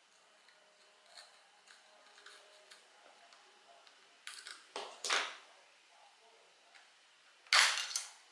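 Small clicks and scraping of a tool and fingers working the glued plastic housing of a Yi 2 4K action camera loose. Two short scrapes come about four and five seconds in, and the loudest, harsher scrape-crackle comes near the end as the part breaks free of the glue.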